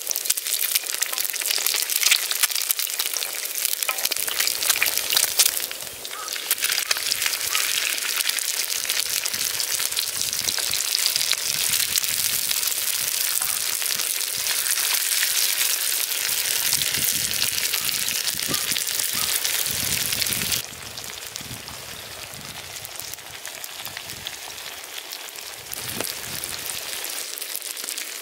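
Food sizzling and spitting in a hot pan, a steady crackling fry. It drops and returns about six seconds in, then steps down quieter about twenty-one seconds in.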